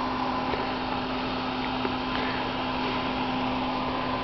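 Cooling fan of a solid-state HF linear amplifier running steadily: an even whir with a constant low hum.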